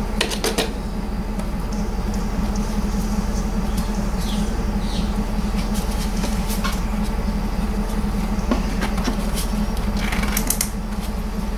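Scattered plastic clicks and rattles from a car's rear light cluster being handled and offered back into its opening, with a quick run of clicks right at the start, over a steady low hum.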